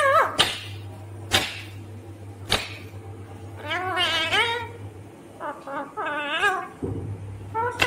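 Indian ringneck parakeet vocalizing: a few sharp clicks, then two drawn-out, wavering calls, one about four seconds in and one about six seconds in.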